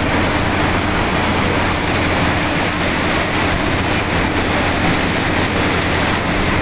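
Steady rushing of muddy floodwater churned up by a bus driving through it, with the low hum of the bus running underneath.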